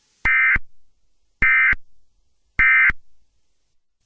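EAS end-of-message signal: three short bursts of SAME digital data tones, each about a third of a second long and about a second apart, each trailing off in a short echo. They close the alert message.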